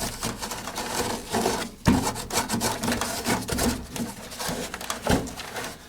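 Hands pulling and scraping packed lint out of a clothes dryer's blower wheel housing: irregular rubbing and scraping, with a sharp knock about two seconds in and another about five seconds in. The lint is being cleared because it had hardened around the blower wheel and jammed the motor, leaving it humming without turning.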